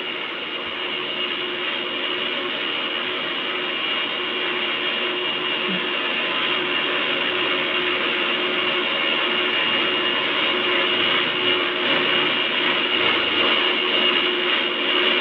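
Airbus A321-200 jet engines running during landing: a steady roar with a constant high whine and a lower hum, growing slowly louder.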